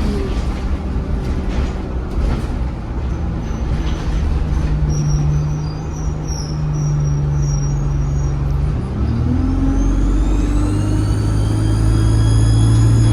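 Interior of an ADL Enviro 200 bus with its diesel engine running. About nine seconds in, the engine pulls harder and a loud turbocharger whistle rises in pitch and then holds high. A few rattles or knocks can be heard in the first couple of seconds.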